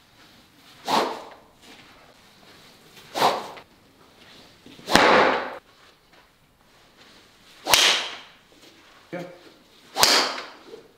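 Golf club swung hard through the air five times, about two to three seconds apart, each swing a short, sharp swish that dies away quickly.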